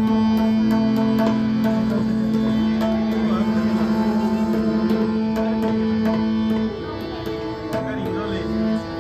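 Ghazal accompaniment with tabla: one long melodic note held for nearly seven seconds, pulsing in its middle part, then shorter changing notes, over regular tabla strokes.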